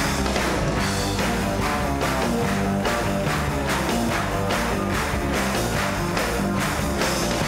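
Rock band playing: electric guitars over a steady drum beat.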